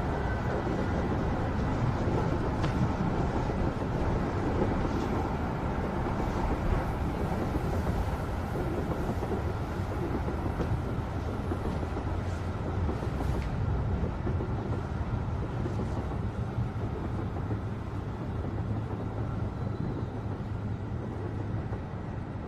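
Subway train running, heard from inside the carriage: a steady low rumble with a few faint clicks.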